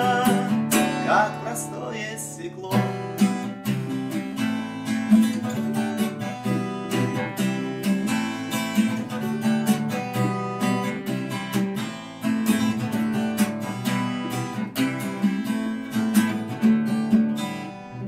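Background music: a song's instrumental passage of strummed acoustic guitar chords with a steady rhythm.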